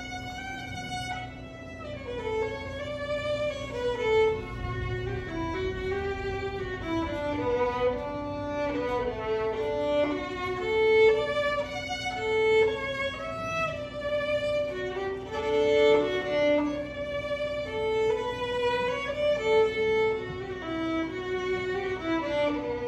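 Solo violin playing a slow melody, one line of held notes that sometimes slide from pitch to pitch.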